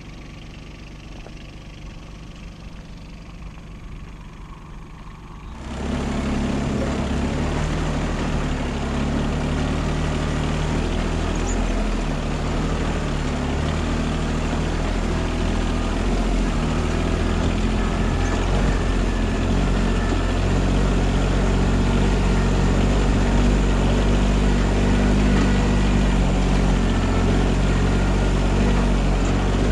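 A vehicle engine, quiet at first, suddenly becomes loud about six seconds in and then runs steadily at a low, even pitch.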